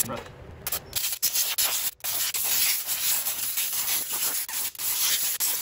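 Aerosol brake cleaner spraying onto steel connecting rods: a steady hiss that starts about a second in, with a couple of brief breaks between bursts.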